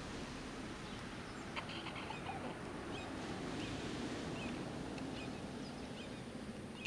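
Baby chicks peeping softly, a few short high notes scattered over a few seconds, above a steady low outdoor rumble.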